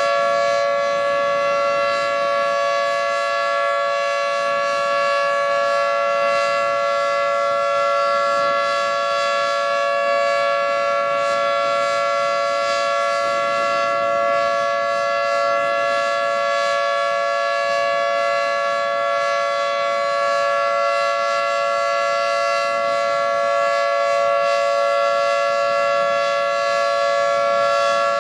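Federal Signal 2T22 dual-tone outdoor warning siren sounding a steady alert during a siren test. Its two tones hold a constant pitch as a loud, sustained chord, with no wail.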